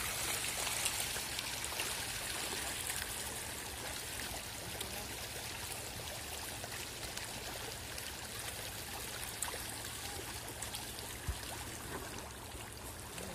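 Hybrid magur catfish thrashing together at the pond surface: a steady churning splash of water, dotted with many small sharp splashes, growing a little fainter toward the end.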